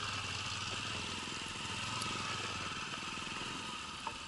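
Motorcycle engines running steadily at low speed, the low pulsing of the firing strokes continuous throughout.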